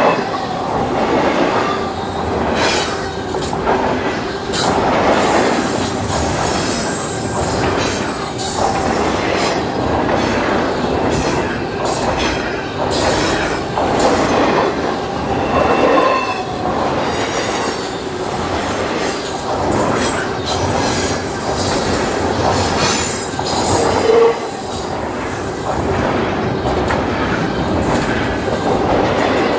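Double-stack intermodal container train's well cars rolling past at speed: a continuous, loud rumble and clatter of steel wheels on the rails, with brief squeals from the wheels about halfway through and again later on.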